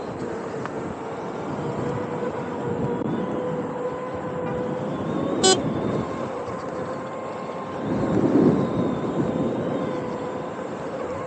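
A single short toot from a hand-held horn about five and a half seconds in, over the steady whine and road noise of a Veteran Sherman Max electric unicycle riding in traffic. A louder low rush of traffic rises briefly around eight seconds in.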